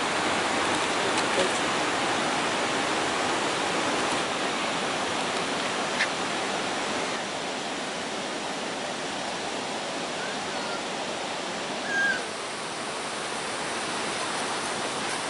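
Steady rush of flowing water, an even noise without pitch, with two short chirps near the end.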